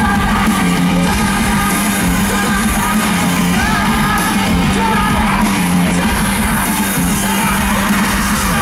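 Live rock band playing loudly over a steady low bass note, with a male lead vocal sung and shouted into the microphone.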